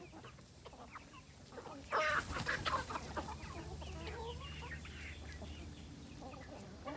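Several chickens clucking, busier and louder from about two seconds in.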